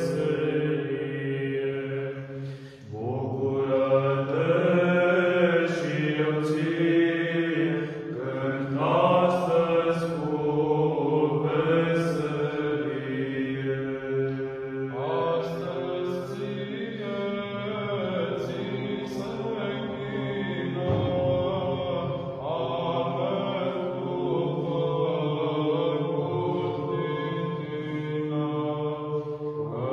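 Small male monastic choir singing Orthodox Byzantine chant a cappella: several voices move through the melody over a steady low held drone (ison). There is a brief breath pause about three seconds in.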